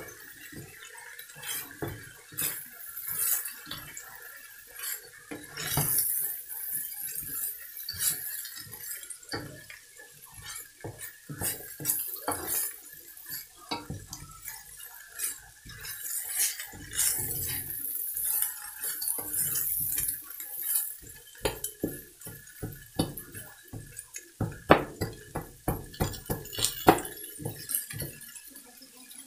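A spatula scraping and clacking against a wok in quick, irregular strokes as shredded cabbage, carrots and green beans are stir-fried.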